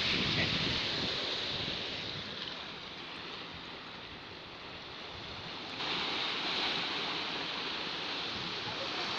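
Sea waves washing and splashing against shoreline rocks, a steady rushing noise that gets suddenly louder about six seconds in.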